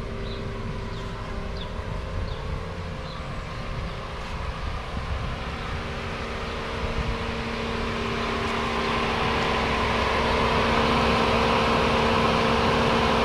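Car running with a steady engine hum and low rumble; a broad rushing noise builds up about two-thirds of the way in and stays louder.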